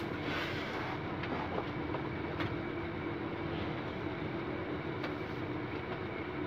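Steady background rumble of workshop room noise with a constant low hum, broken by a few faint clicks and knocks.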